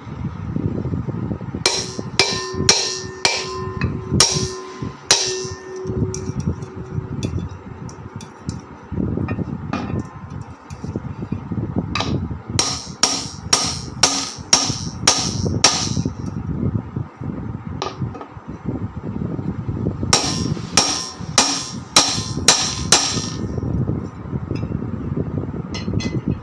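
Hammer striking a ceiling fan's metal cover to seat it over the motor's bearing: three runs of sharp knocks, about two a second, the first run with a brief metallic ring.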